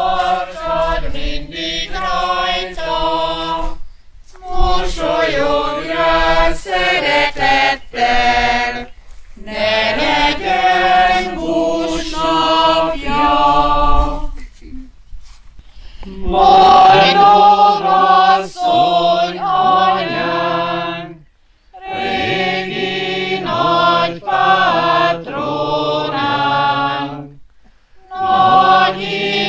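A choir singing in phrases separated by short pauses.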